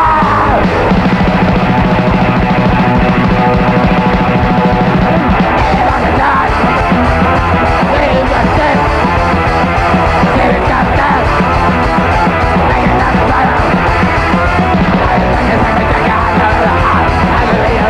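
Hardcore punk band recording playing loud and dense, with yelled vocals over much of it from about six seconds in.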